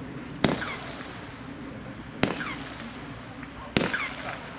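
Low-noise firework battery (cake) firing: three sharp pops about a second and a half apart, each trailing off briefly.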